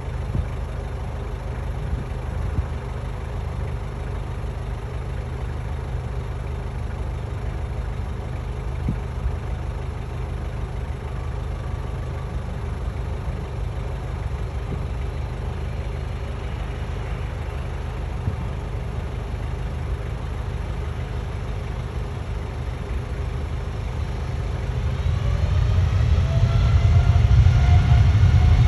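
Boeing 737 jet engines, a steady low rumble that grows louder near the end with a rising whine.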